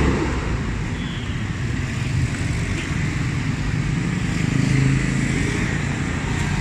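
Road traffic: steady engine and tyre noise from passing vehicles, with one engine growing louder about four to five seconds in.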